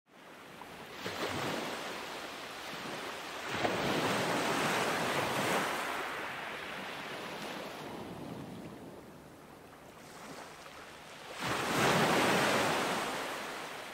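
Ocean waves breaking and washing in, a rushing hiss that swells and falls back, with the biggest surges about a second in, around four to six seconds, and near the end.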